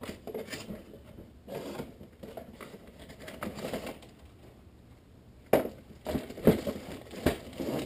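Cardboard packaging being opened and handled: scraping and rustling, then several sharper knocks and thumps in the last couple of seconds.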